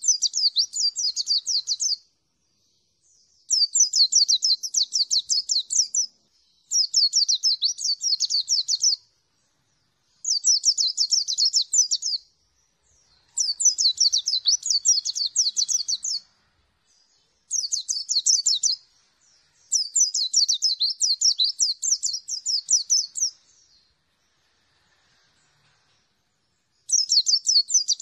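Pleci (white-eye) singing: high, rapid trilling phrases of two to three seconds each, with pauses of about a second between them, about eight phrases in all.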